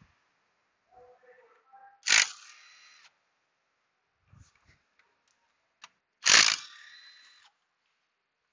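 Two sharp metallic clanks about four seconds apart, each ringing for about a second, with a few faint clicks between them: hand tools or small metal parts being knocked or set down while an engine is worked on.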